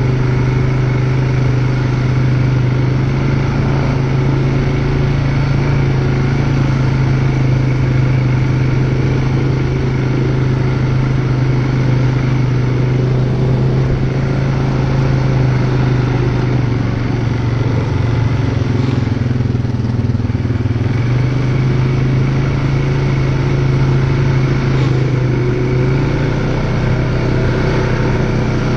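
ATV engine running steadily at a low, even pace while riding, its pitch stepping up slightly near the end.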